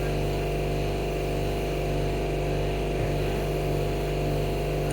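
An electric-motor-driven shop machine running at a steady speed with a constant low hum. Near the end there are a few light metallic clicks.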